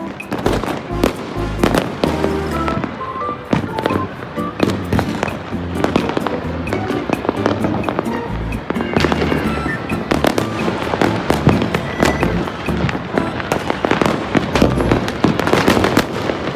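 Fireworks and firecrackers going off across a city, many sharp overlapping bangs and cracks one after another, heard together with music.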